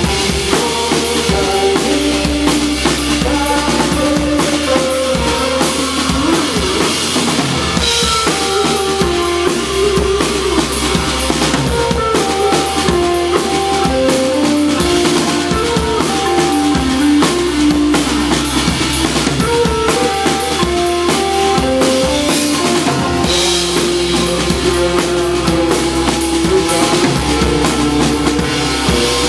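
Live rock band playing loud: a drum kit with kick, snare and cymbals driving a steady beat under electric guitar and bass notes that move up and down in a melodic line.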